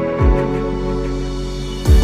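Background music: soft new-age style instrumental with sustained notes and a low drum hit shortly after the start and another near the end.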